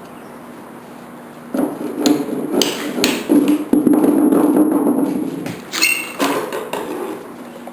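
Hammer blows and knocks on the wooden parts of a pool table, a handful of sharp strikes starting about a second and a half in, with a longer rough scraping noise in the middle.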